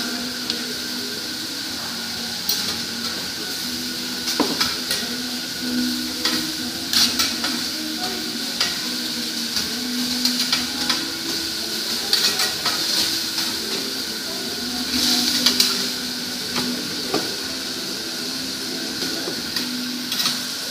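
A metal spatula and fork clink and scrape on a steel teppanyaki griddle as food is chopped and turned, with irregular sharp clicks over steady sizzling of frying vegetables and meat.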